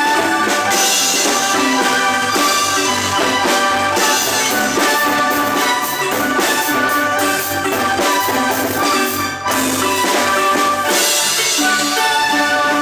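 Guatemalan marimba ensemble playing a tune continuously, with mallets striking tuned wooden keys.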